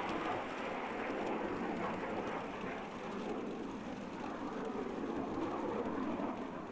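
Navy jet fighter flying over in the distance: a steady rushing noise that eases off near the end.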